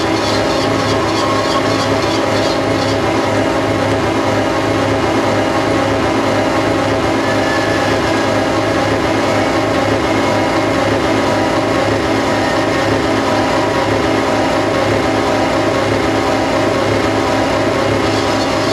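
A steady, unbroken mechanical drone like running machinery, holding the same level throughout with several constant hums layered over one another.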